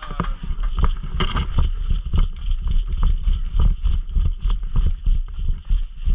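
Heavy, irregular thudding about three or four times a second, with rustling and wind buffeting on a worn camera's microphone, as a player runs forward carrying gear.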